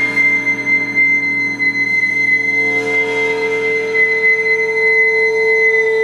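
A small flute holding one long, steady high note over a lower ringing drone of gongs and singing bowls; a deeper tone in the drone swells in about halfway through.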